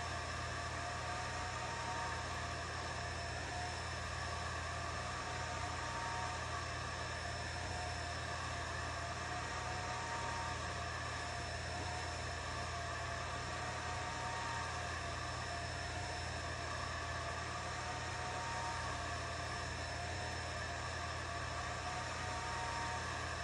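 Atomstack A10 Pro laser engraver running: a steady whirring hum with a motor whine that shifts in pitch in a cycle repeating about every four seconds as the laser head sweeps back and forth over the work.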